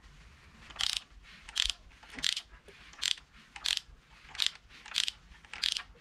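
Ratchet wrench on the crankshaft bolt clicking in short bursts, about eight strokes spaced roughly two-thirds of a second apart, as it is swung back and forth to turn the Genesis Coupe 2.0 engine over by hand. The crank is being rotated through two full turns to confirm the freshly set timing chain lines up.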